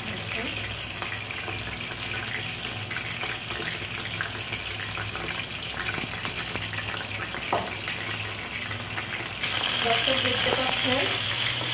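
Batter-coated Bombay duck (loitta fish) pieces frying in hot oil in a pan: a steady sizzle with small crackling pops. It grows louder about nine seconds in.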